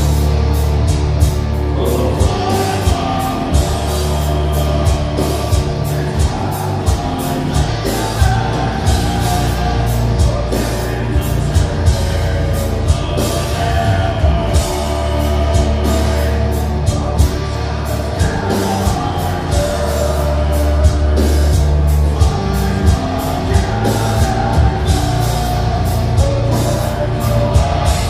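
Deathcore band playing live: distorted guitars and bass over fast, dense drumming on a full drum kit, with the vocalist's vocals on top.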